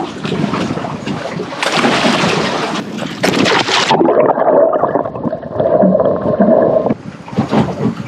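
Wind noise on the microphone and water sloshing around a small boat. The sound changes abruptly a few times, and for about three seconds in the middle it turns muffled, with the high end gone.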